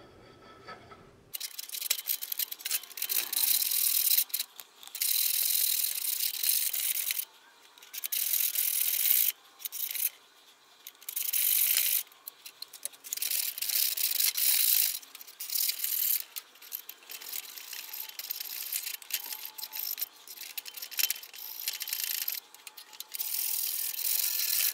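Hand file rasping in long, slow strokes across the jaw face of a bench vise, starting about a second in, with short pauses between strokes. The file is truing the jaw face so the two jaws meet evenly.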